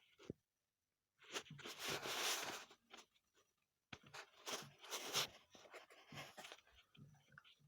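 Irregular rustling and scraping with scattered clicks, in short bursts separated by silent gaps: objects being handled.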